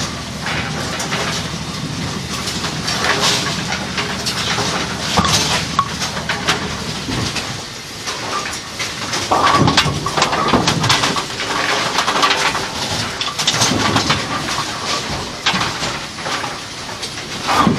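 Steady rumbling machinery noise with frequent irregular knocks and clatter. A low hum underneath is stronger for the first several seconds, then fades.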